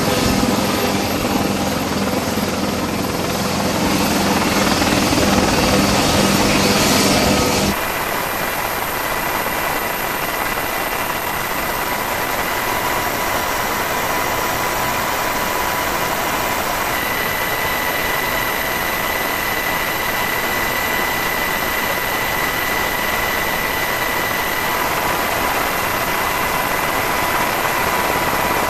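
Helicopter running on a ship's flight deck, a loud pitched drone. About eight seconds in, it cuts to a steady aircraft engine drone with a high whine, as heard from aboard the aircraft in flight.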